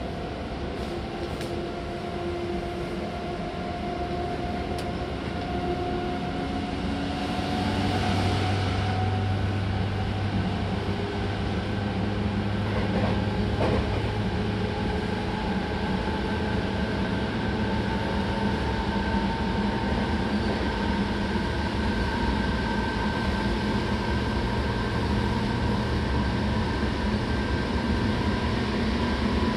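Seibu 6000 series electric train running, its Hitachi GTO VVVF inverter and traction motors giving steady whining tones that drift slowly in pitch over the rolling noise of the train. The sound grows louder over the first eight seconds or so, then holds steady.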